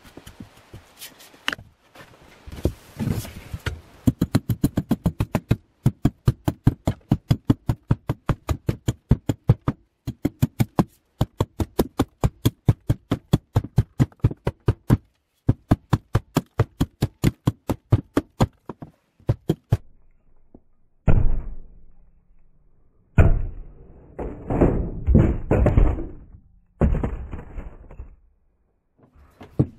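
Repeated wooden knocks, about three a second and very even, as the new axe handle is struck to drive the axe head onto it. Near the end come several heavier, deeper thuds, spaced more unevenly.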